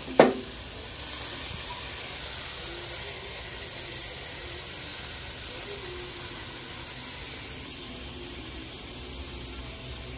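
Sliced pork for bulgogi sizzling in a hot nonstick frying pan: a steady, high hiss that eases slightly after about seven seconds. A sharp knock just after the start, likely the pan or spoon on the stove, is the loudest moment.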